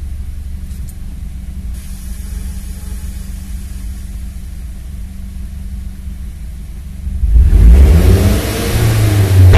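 Mazda CX-7's turbocharged 2.3 L DISI MZR four-cylinder idling steadily, then revved hard about seven seconds in. The rev brings a loud rushing hiss that cuts off near the end.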